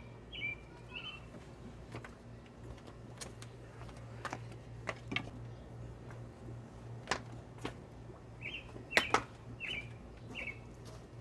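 Bird chirps: short falling calls in a group of three near the start and another run near the end. Scattered sharp clicks and taps come between them, with a loud double click about nine seconds in, over a steady low hum.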